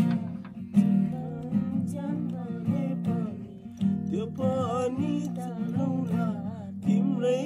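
Acoustic guitar strummed in steady chords, with a voice singing along from about halfway through.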